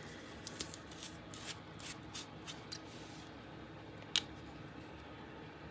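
Faint small clicks and taps of a small jar of gold paint being handled and opened, with one sharper click about four seconds in.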